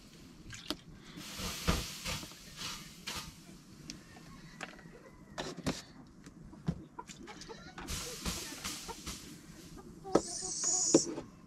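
Wood fire crackling and popping under an iron griddle, with a soft hiss and the clink of a cup against a metal pot. A brief high-pitched call sounds near the end.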